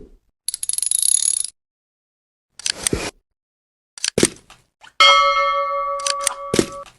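A string of short sound effects separated by dead silence: a high hissing swoosh, a few clicks and knocks, then a bell-like chime that rings steadily for almost two seconds near the end.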